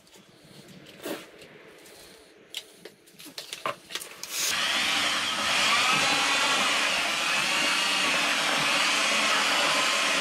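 A few scrapes and clicks as dry concrete premix is scooped into a batch that was too wet. About four and a half seconds in, a handheld electric paddle mixer starts and runs steadily, churning the wet concrete, its motor pitch rising and falling slightly as it works.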